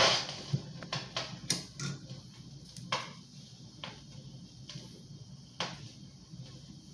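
Vintage console stereo's record changer just before the record's music begins: scattered, irregular clicks and pops over a steady low hum.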